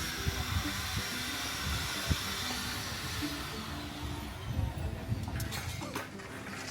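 A steady hiss that fades away about halfway through, over soft background music, with a few sharp clicks near the end.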